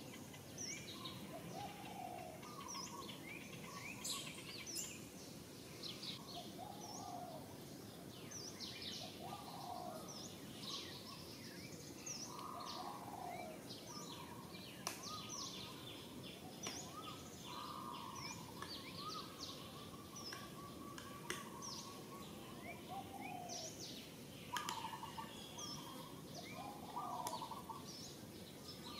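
Several birds chirping and calling, short high notes mixed with repeated lower swooping calls every couple of seconds, over a steady low background hiss.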